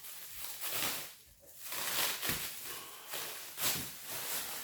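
Unboxing noises: packaging rustling and parts scraping as they are handled, in several short irregular bursts.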